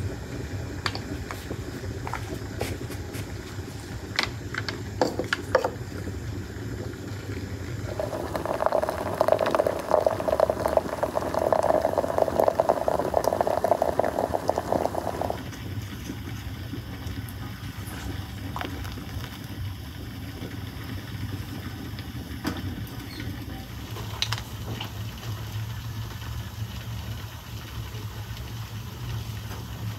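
Hot water running from a samovar's tap into a glass teapot, a steady pouring that starts about eight seconds in and stops sharply some seven seconds later. A steady low hum runs underneath throughout, with a few faint clicks.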